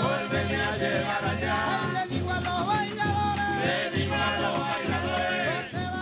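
Lara tamunangue folk music: cuatros and guitars strumming, maracas shaking, a steady low beat from a tambor cumaco log drum about twice a second, and a singer's voice carrying the melody.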